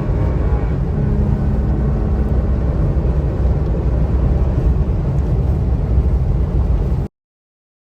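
Cab noise inside a 2020 Toyota Tacoma TRD Off-Road accelerating through deep snow in four-wheel drive with traction control on: a loud, steady mix of engine, drivetrain and tire noise with a steady hum joining about a second in. It cuts off suddenly a little after seven seconds.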